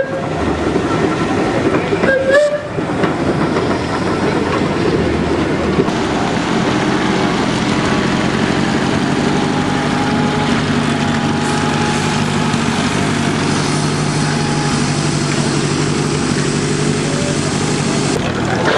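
Vintage half-track car's engine running with a steady low hum as it drives slowly past, over a general din of running machinery. A short rising whistle sounds about two seconds in.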